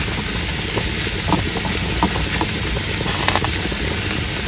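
A pot of rice and sweet-potato chunks boiling on the stove: a steady bubbling hiss with a few short pops scattered through it.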